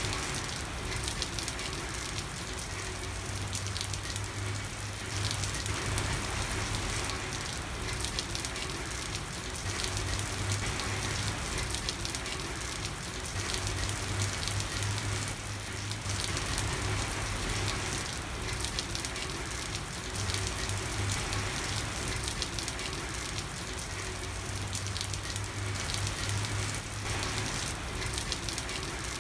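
Steady rain falling, with a low hum that fades in and out every few seconds.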